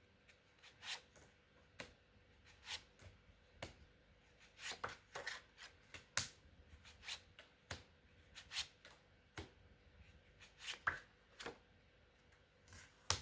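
Tarot cards being handled and laid out: a string of short, sharp card snaps and clicks at an uneven pace, roughly one or two a second.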